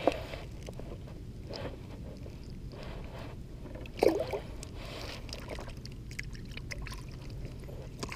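Water sloshing and splashing, with a louder splash just at the start and a stronger one about four seconds in, over a steady low rumble.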